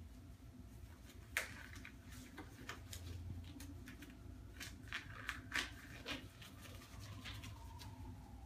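Faint rustling and sharp snaps of disposable exam gloves being pulled on and handled, one crisp snap about a second and a half in and a quick run of them around five to six seconds, over a steady low room hum.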